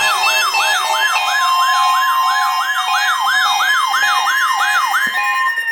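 Electronic siren yelping: its pitch sweeps up and down about three times a second over a steady tone, then it stops sweeping and holds a single steady tone near the end.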